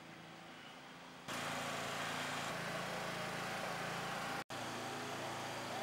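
Street ambience: a steady hiss under a low engine hum, getting louder about a second in and cutting out for an instant near the middle.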